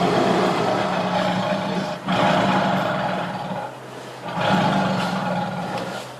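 Tiger growling and roaring in three long, rough calls, each lasting about one and a half to two seconds with short breaks between.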